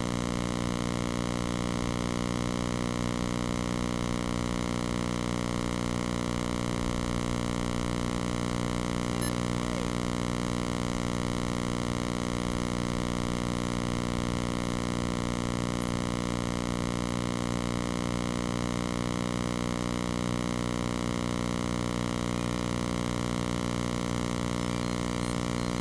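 A steady electrical hum made of many fixed tones at once, unchanging throughout.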